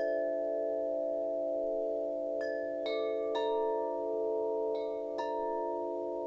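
Wind chimes ringing, struck at irregular intervals about six times, each new strike adding a bright chime over several long overlapping tones that ring on.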